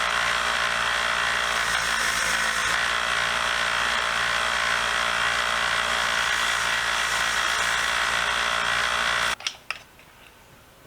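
A 1x30 belt sander running steadily, with a hum and the hiss of metal being ground on the belt. It stops abruptly about nine seconds in, followed by two sharp clicks.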